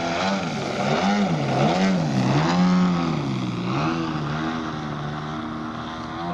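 A DA 120cc twin-cylinder two-stroke petrol engine turning a large propeller on a Hangar 9 Extra 300 model aircraft in flight. Its note swings up and down in pitch several times in quick succession, then holds steadier over the last couple of seconds.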